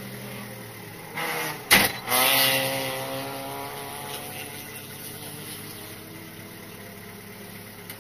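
Haima Family race car's engine heard from inside the cabin: it runs steadily, then about two seconds in, after a sharp click, it rises in revs and falls back to a steady idle over the next couple of seconds.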